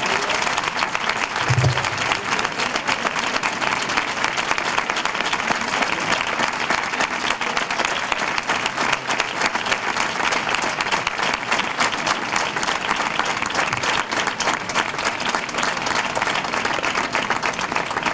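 Audience applauding: a long, steady round of clapping from many people.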